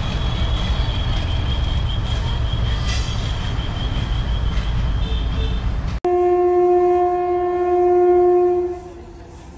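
Freight train running on the rails with a heavy rumble and a steady high-pitched whine. About six seconds in, the sound cuts abruptly to a locomotive horn blowing one long, single-pitched blast of nearly three seconds.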